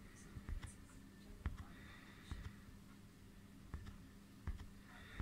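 Faint handling noise: scattered light clicks and knocks from a hand turning a metal-barrelled telescope eyepiece, over a faint steady hum.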